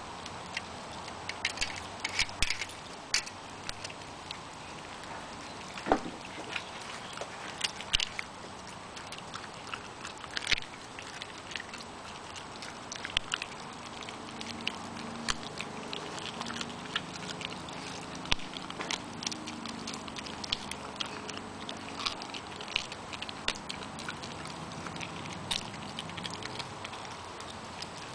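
Samoyed puppy chewing raw chicken ribs: an irregular run of sharp bony crunches and clicks.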